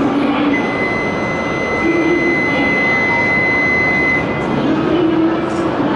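Platform ambience beside standing E7/W7 series shinkansen trains: a steady rush of noise. A single steady high tone sounds for about three and a half seconds from about half a second in.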